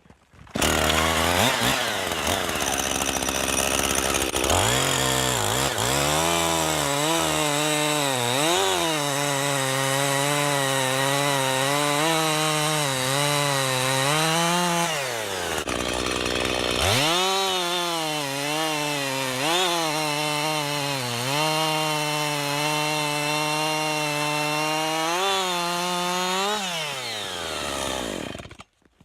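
Gas chainsaw running and cutting into a hickory log, its engine pitch sagging and recovering again and again as the chain bites, then stopping suddenly near the end. The chain is freshly sharpened and cutting well.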